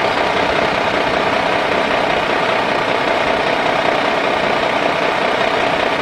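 Diesel engine of a heavy tandem-axle cargo truck running steadily, with a constant mid-pitched drone.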